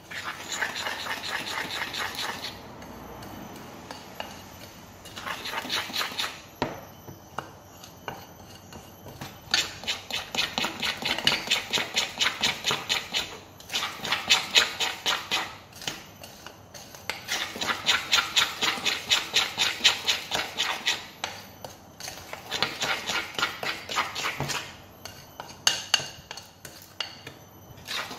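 Wire whisk beating a thick cake batter of butter, sugar, eggs and flour in a mixing bowl by hand, its wires clicking against the bowl about four times a second with a scraping hiss. The beating comes in spells of a few seconds with short pauses between.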